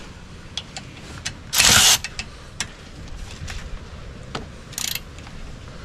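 Hand ratchet working the bolts of an ATV's chain case cover: scattered metal clicks and knocks, with a loud rasping burst about one and a half seconds in and a shorter one near the end.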